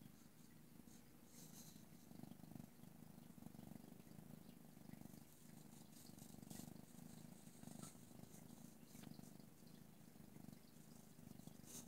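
Domestic cat purring faintly and steadily while being stroked on the chin and head, with a few faint scratchy clicks.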